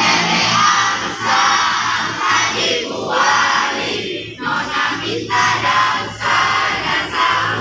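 A large group of schoolchildren singing together in unison, in short phrases with brief breaks between them.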